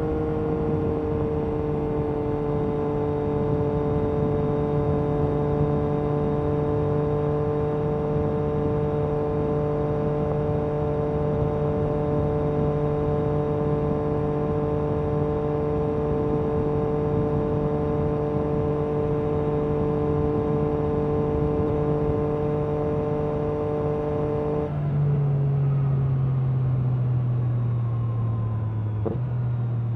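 Yamaha MT-09 SP's three-cylinder engine through an Akrapovic carbon racing exhaust, running at steady revs on the move. About 25 seconds in, the higher tones drop away and the engine note settles lower.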